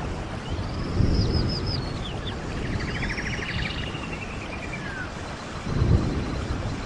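Stream water running with a steady rush and low surges about a second in and near the end, while small birds sing a few phrases of whistled, sliding notes and a rapid trill in the first half.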